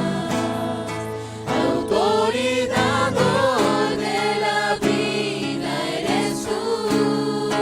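Christian worship music: a sustained instrumental backing under group singing, with voices coming in about a second and a half in.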